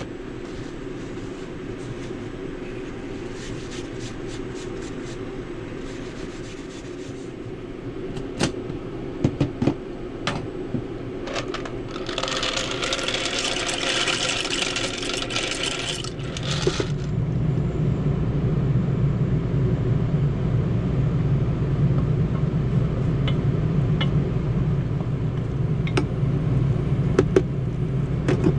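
Scattered clicks and knocks over a steady hum, then a few seconds of loud hiss. A little past halfway a low vehicle engine rumble sets in and carries on.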